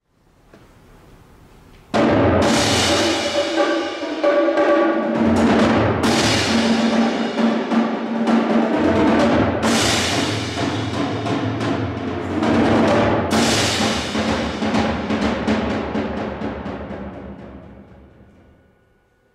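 Percussion ensemble playing drums and cymbals. A quiet swell for about two seconds breaks into a sudden loud entry, followed by several big accented strikes a few seconds apart, each leaving a long ringing decay. The sound fades away over the last few seconds.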